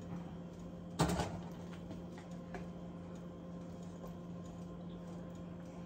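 A metal kettle set down on an electric coil-burner stovetop with one sharp knock about a second in. After it come faint sounds of a wooden spoon stirring broth in a skillet, over a steady low hum.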